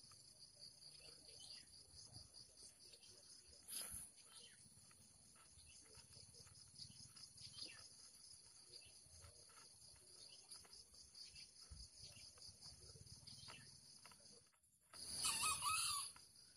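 A junglefowl cock crowing once, loud and close, near the end, over a steady high-pitched insect chorus. A brief sharp noise about four seconds in.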